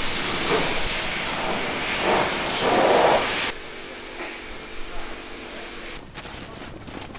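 Pressure washer spraying a water jet onto a mud-caked off-road truck: a loud steady hiss that cuts off suddenly about three and a half seconds in. Only faint background follows, with a few light clicks near the end.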